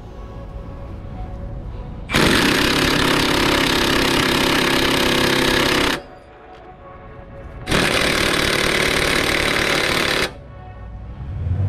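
Milwaukee 2967-20 half-inch cordless impact wrench hammering on a rusted rear shock absorber bolt in two long bursts, about four seconds and then two and a half seconds, with a short pause between. The bolts are rust-seized and are not breaking loose.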